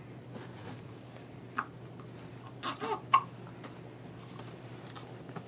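Baby hiccuping: a few short, sharp hiccups a second or two apart, one of them with a small voice sound.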